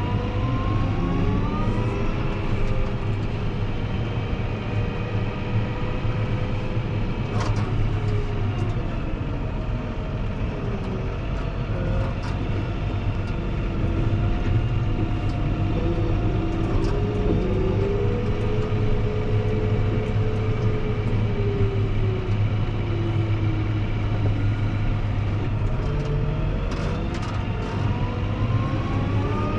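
Fendt 724 Vario tractor running under way, a steady low engine hum under a whine that rises and falls slowly in pitch as it manoeuvres.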